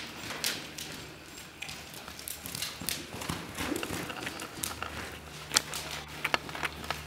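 A horse's hooves trotting on the sand footing of an indoor arena: a run of soft, irregular hoofbeats with a few sharper clicks near the end. A steady low hum comes in about two thirds of the way through.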